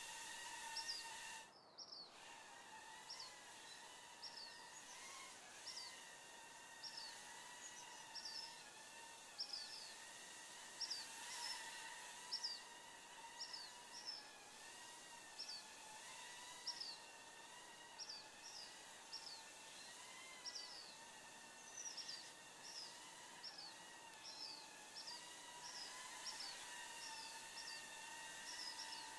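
Faint outdoor ambience: a bird repeating a short, falling chirp roughly once a second, over a steady, slightly wavering high hum. The hum drops out briefly about two seconds in.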